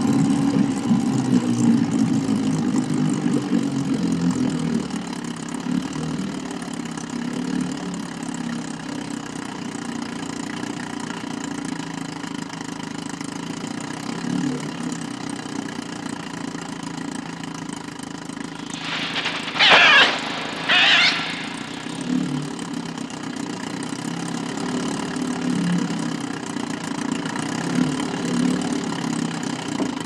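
Small boat's outboard motor running steadily. Two short, shrill cries break in about two-thirds of the way through, about a second apart.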